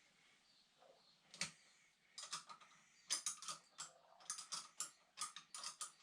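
A ratchet clicking: one sharp click about a second and a half in, then quick, irregular runs of clicks, as tension on a support is eased.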